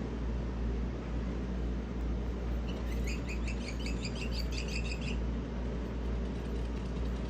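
Toy bird chirping: a quick run of short, high tweets starting a few seconds in and lasting about two seconds, over a steady low hum.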